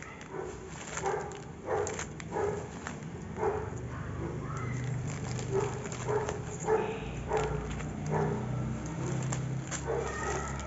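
A dog barking over and over in a steady string of short barks, with plastic wrap and foil packets crinkling under the hands.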